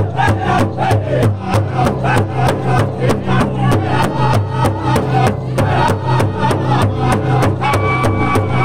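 Northern-style powwow drum group singing a chicken dance song: several men strike one large powwow drum in unison at about four beats a second while singing together in high, strong voices. A thin steady high tone joins near the end.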